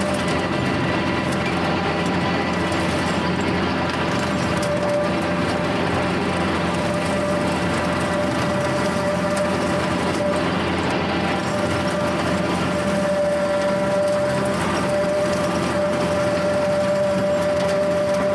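Kubota L4701 tractor's four-cylinder diesel engine running steadily under load while driving a Countyline rotary cutter (brush hog) through tall grass. A steady whining tone rides over the engine.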